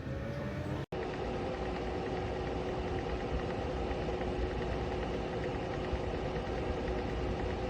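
Ceramic space heater's fan running steadily, a constant whir with a steady motor hum, broken by a brief dropout about a second in.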